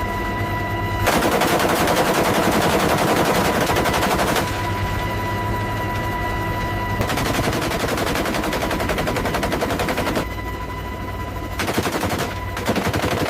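Gatling-type rotary machine gun firing long, continuous bursts: about three seconds starting a second in, another of about three seconds in the middle, then two short bursts near the end. A steady high whine is heard between the bursts.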